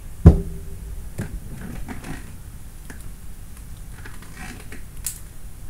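A power bank set down on a desk with a single heavy thump about a third of a second in, followed by faint small clicks and rustling.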